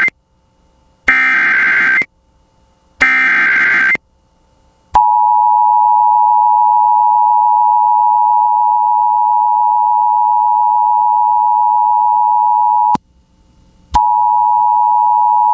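Emergency Alert System broadcast signal: the SAME digital header sent three times as one-second bursts of rapid data tones about a second apart, the first ending as the sound begins, then about five seconds in the steady two-tone attention signal, which stops for about a second near the end and starts again. It announces an emergency alert, here a Severe Thunderstorm Warning.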